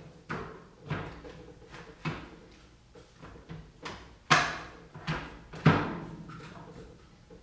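Hard plastic knocks and clunks as a battery pack is pushed and knocked into the battery bay of an Echo 58V cordless chainsaw: a series of sharp knocks, the loudest two about four and a half and nearly six seconds in.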